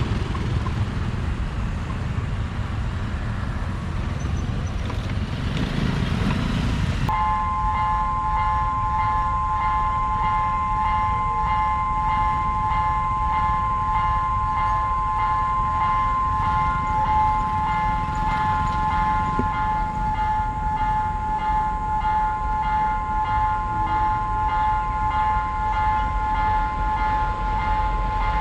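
Broad traffic and wind noise, then, after a sudden change about seven seconds in, a steady two-tone warning signal with a fast, even pulse sounds without a break over a low rumble at a railway level crossing.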